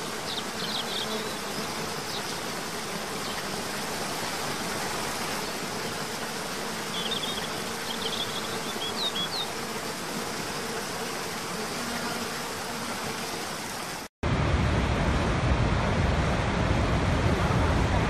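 Steady rushing hiss of water cascading down a tiered waterfall into a pool, with a few short high bird chirps about a second in and again around seven to nine seconds. About fourteen seconds in it cuts abruptly to a louder, deeper roar of a large waterfall pouring over a wide brink.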